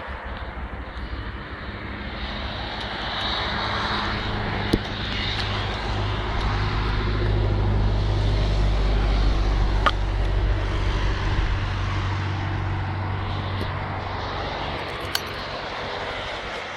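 Yamaha DT125R's single-cylinder two-stroke engine running through a full DEP Pipes expansion-chamber exhaust with a shortened end tip, its sound growing louder over the first half and easing off again. A few sharp clicks come through about five, ten and fifteen seconds in.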